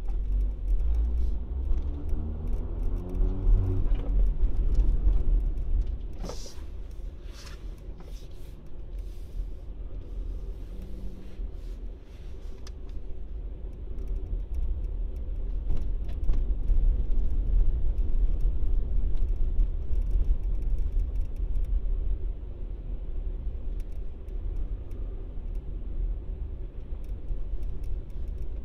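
Car engine and road noise heard from inside the cabin while driving slowly; the engine note rises as the car speeds up over the first few seconds, then settles into a steady low rumble. A few light clicks and rattles come through.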